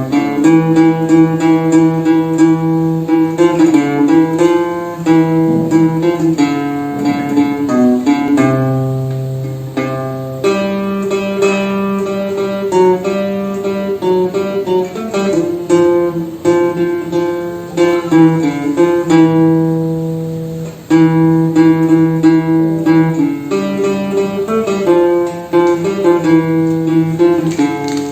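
Instrumental acoustic guitar music: plucked and strummed chords carrying a melody, with no singing.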